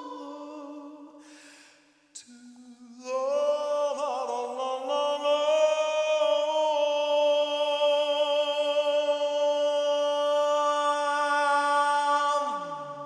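Male jazz vocalist singing wordless, sustained notes. A held note fades away, then from about three seconds a single long note is held steadily for some nine seconds before sliding down in pitch near the end.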